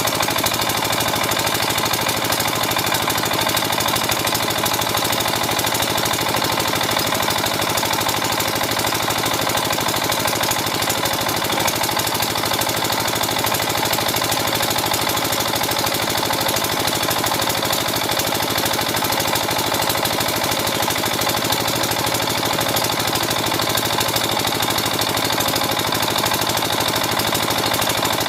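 Backhoe loader's diesel engine running steadily at an even level.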